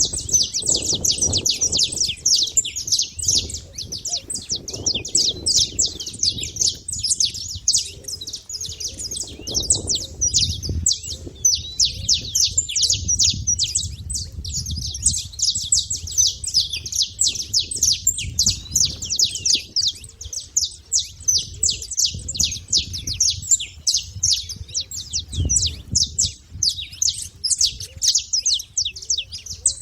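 Saffron finches chirping and calling: a continuous run of rapid, high, short notes with no pause.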